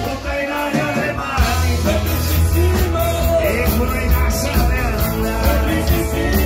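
Upbeat rock music with a lead vocal over bass and drums; the bass and drums come in heavily about a second and a half in.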